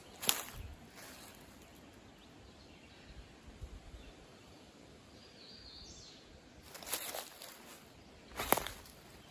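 Footsteps on the forest floor: a sharp step just after the start, then a quiet stretch, then a few more steps near the end.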